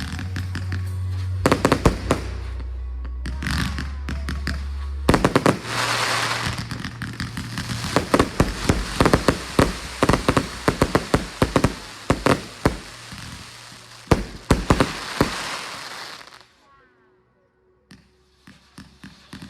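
Fireworks going off in rapid succession with bangs and crackling, over music with a steady bass. The barrage is densest through the middle, stops abruptly near the end, and after a short lull a few more pops follow.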